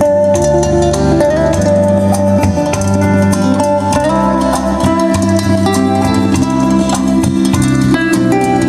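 Recorded music with plucked guitar and a bass line, played back through a pair of Rectilinear loudspeakers driven by a Luxman LX-360 tube integrated amplifier.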